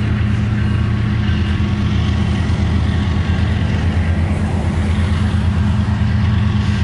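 Diesel locomotive of a CN freight train running with a steady, loud low engine drone as it approaches.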